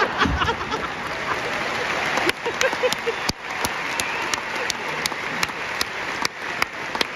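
Large audience applauding a joke. Individual sharp claps close to the microphone stand out at a steady rate from about two seconds in, as the applause thins.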